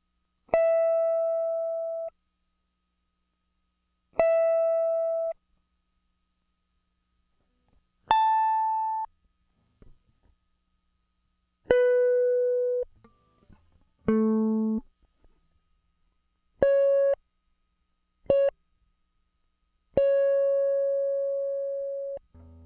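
Electric guitar played one note at a time through a breadboard audio compressor: eight single notes at different pitches, each starting sharply, ringing for about one to two seconds and then stopping abruptly. The last note is the longest.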